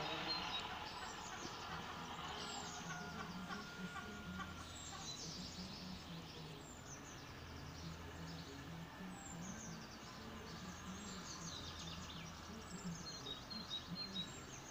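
Small birds singing: short high chirps that fall in pitch, repeating every second or two, over a steady low background hum.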